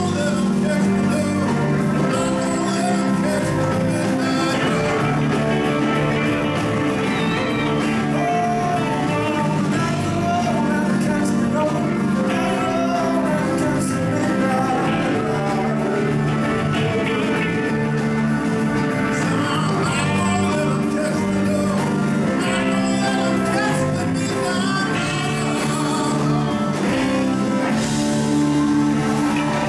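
Live rock band playing a song: a man singing over electric guitars and drums.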